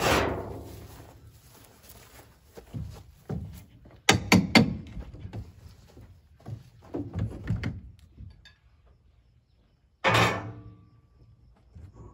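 Metal tool knocking and prying at the nailed wooden lid of a shipping crate as it is opened. A ringing metal clang comes at the start, a quick run of sharp knocks about four seconds in, then scattered knocks and creaks, and another ringing clang about ten seconds in.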